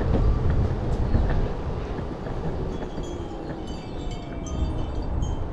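Steady low rumble of wind buffeting the microphone mixed with the Possway T3 electric skateboard's 4-inch rubber wheels rolling over rough, cracked asphalt, easing somewhat after about two seconds.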